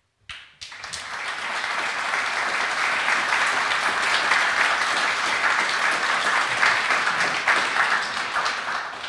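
Audience applauding: the clapping starts suddenly, builds over the first couple of seconds, holds steady, and dies away near the end.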